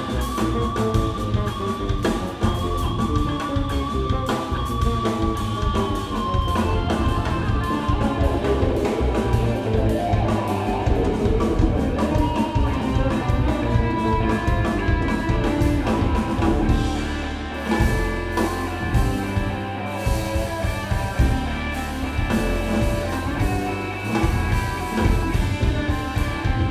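Live instrumental groove-rock trio: electric guitar playing sustained, bending lead lines over electric bass and a drum kit.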